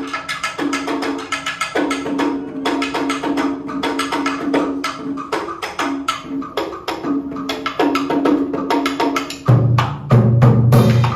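Traditional Vietnamese water-puppet theatre music: rapid wood-block clicks over a held pitched note, with a loud, deep drum coming in near the end.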